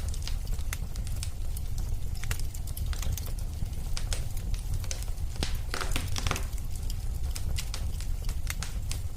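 Wood fire crackling, with irregular sharp pops and snaps over a steady low rumble, and a brief denser crackle and hiss about six seconds in.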